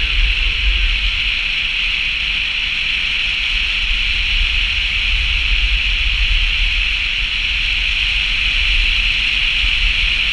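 A car driving on a snow-covered highway: steady road and wind noise, a constant hiss over a low rumble.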